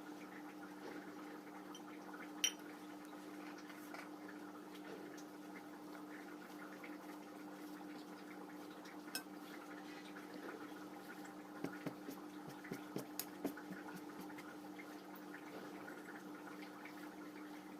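Quiet sounds of someone eating a meal: a sharp click about two and a half seconds in, then a quick run of small clicks and taps around twelve to thirteen seconds, over a steady low hum.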